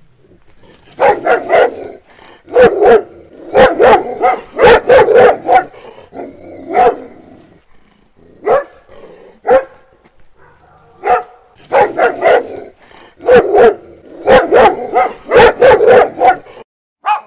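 A dog barking over and over, in runs of several loud barks broken by short pauses.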